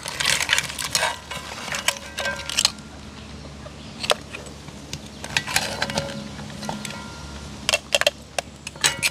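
Metal spoon clinking and scraping against a cast-iron pot as curry crab is spooned out onto a plate: a run of irregular sharp clinks, some ringing briefly.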